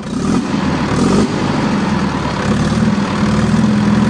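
Deutz air-cooled four-cylinder diesel running steadily, a loud, rapid, even clatter that holds the same pitch throughout.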